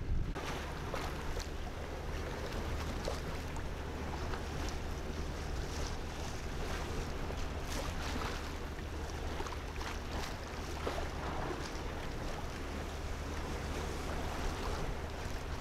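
Small tugboat under way: its engine runs with a steady low hum beneath water splashing and rushing along the hull, with wind on the microphone.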